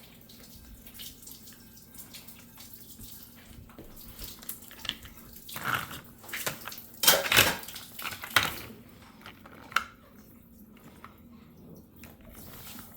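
Water running and splashing in a kitchen sink, louder for a few seconds in the middle, with a couple of sharp clinks or knocks after it.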